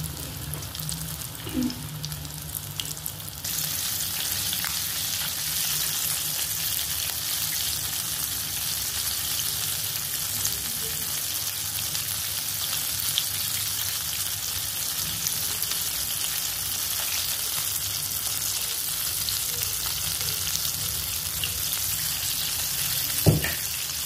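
Flour-coated chicken drumsticks deep-frying in hot oil: a steady sizzle with small pops, which grows louder about three and a half seconds in. A single sharp tap near the end.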